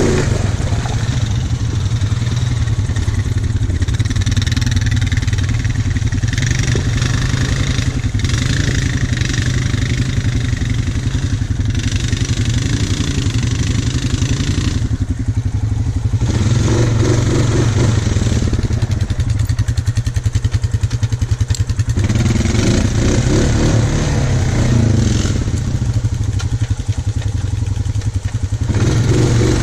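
Honda Foreman 500 ATV's single-cylinder four-stroke engine running steadily while the machine is ridden through mud, with louder stretches of tyre and mud noise coming and going.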